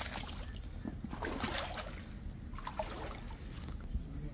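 Water splashing and trickling as a cast net is hauled up by hand from waist-deep water, water running off the mesh in irregular splashes and drips.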